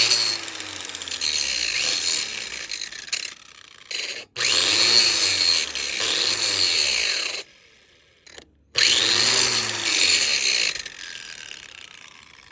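DeWalt DW402 4-1/2-inch angle grinder grinding down rough welds on cast iron, in three bursts of about two to three seconds each with short pauses between them. The sound fades away near the end as the grinder winds down.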